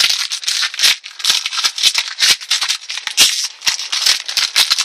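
Foil wrapper of a Pokémon trading-card booster pack crinkling and crackling as it is torn open by hand, a rapid, unbroken run of sharp crackles.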